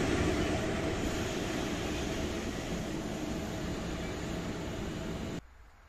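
Electric locomotive running light on its own past the platform, its running and rail noise fading steadily as it draws away. The sound cuts off abruptly near the end.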